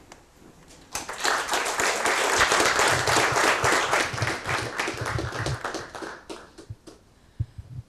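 Audience applauding. The clapping starts about a second in and dies away in the last couple of seconds.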